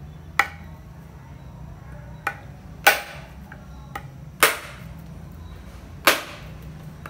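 Cleaver striking a whole husked coconut held in the hand, knocking the hard shell to crack it open: five sharp knocks a second or two apart, the last three loudest.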